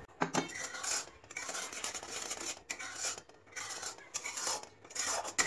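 A flat steel spatula scrapes the bottom and sides of an iron kadai through thick, reduced milk (khoya), in a run of rasping strokes with short pauses between them. The pan is scraped so that the thickening milk does not stick and burn.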